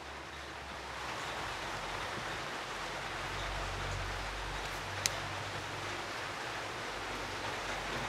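Steady even hiss, with one sharp click about five seconds in.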